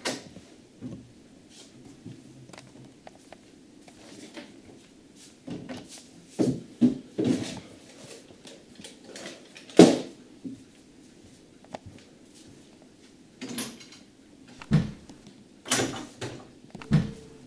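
Irregular clunks, knocks and footsteps of a person moving about a kitchen and handling doors, over quiet room tone. The loudest clunk comes about ten seconds in, with a cluster of knocks near the end.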